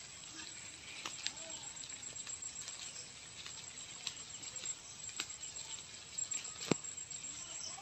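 Faint outdoor ambience in light rain: a soft hiss with scattered small clicks, one sharper click about two-thirds of the way through.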